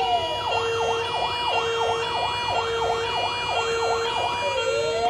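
Electronic emergency siren of the fire-engine kind. It comes out of a long falling wail, switches to a fast up-and-down yelp about twice a second, then goes back into a long rising wail near the end. A lower tone pulses about once a second underneath.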